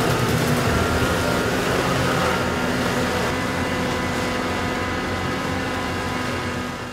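Tractor and Dücker side-arm flail mower running, the mower's rotor cutting long roadside grass: a steady mechanical drone with a few held tones, fading slowly.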